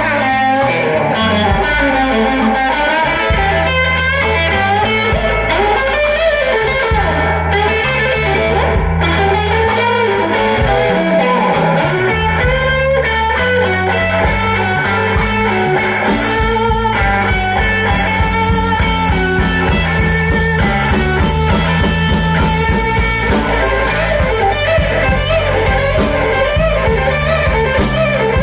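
Live blues band playing: electric guitar lead lines over bass guitar and a drum kit keeping a steady beat, with a cymbal wash for several seconds a little past the middle.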